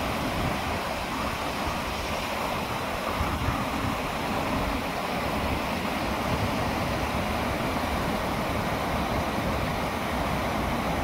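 Steady rush of water from a man-made waterfall cascading down over rocks, mixed with wind buffeting the microphone in low rumbles.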